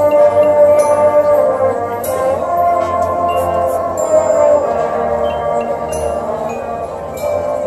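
High school marching band playing: the brass hold sustained chords over struck percussion.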